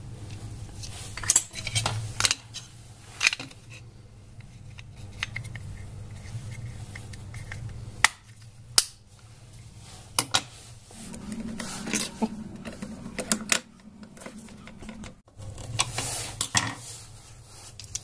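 Scattered sharp plastic clicks and clatter as the white plastic door lock assembly of an LG top-load washing machine is handled and snapped back together, over a steady low hum.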